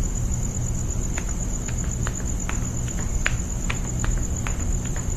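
Crickets trilling at night, a steady high continuous chirr over a low rumble, with a few scattered short ticks.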